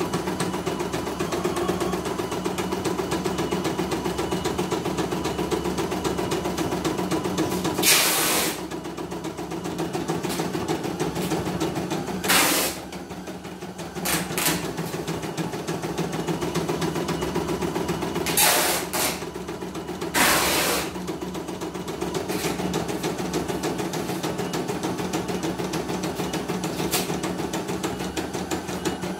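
CNY E900 computerized embroidery machine stitching with a fast, steady needle rhythm. Several brief, loud hissing noises cut in through the middle.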